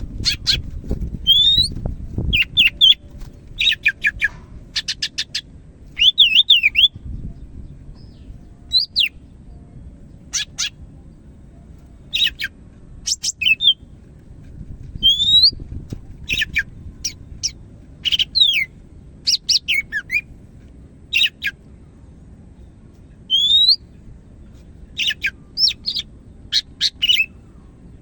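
Cucak hijau (green leafbird) singing a lively, varied song in separate bursts: sharp notes, quick runs of notes and rising whistles, over a steady low background rumble.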